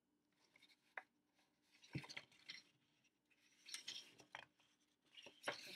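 Faint paper rustles and soft clicks as a hardcover picture book is handled and its page turned by hand, the loudest rustle near the end.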